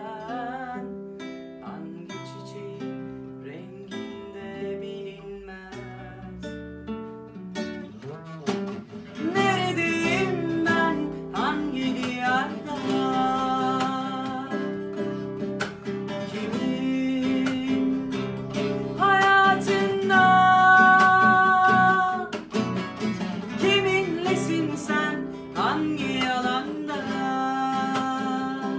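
An acoustic guitar plays a slow picked and strummed accompaniment while a woman sings. Her voice comes in louder about eight seconds in, with long held notes.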